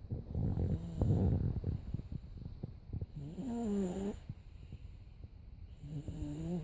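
A 17-month-old toddler snoring in his sleep: a rough, rattling snore about half a second in, then two snores with a wavering pitch, about three seconds and six seconds in.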